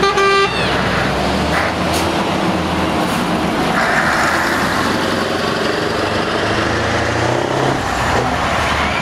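Scania 143 tractor unit's V8 diesel engine running as the truck pulls slowly past, with a brief horn toot right at the start. Near the end a Scammell eight-wheel tipper's diesel engine comes through behind it.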